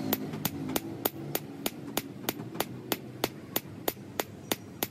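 Hammer blows on metal in a steady, even rhythm of about three strikes a second.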